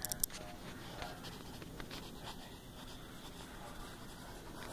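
Pencil scratching faintly on paper in short strokes, with a couple of knocks from handling right at the start.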